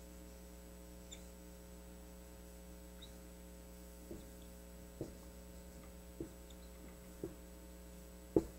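Steady electrical mains hum, with a handful of short faint taps in the second half, the strongest near the end, as a dry-erase marker strikes the whiteboard while a figure is being drawn.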